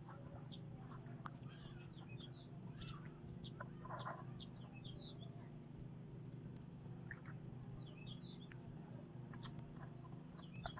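Small birds chirping, scattered short falling notes, over a steady low hum.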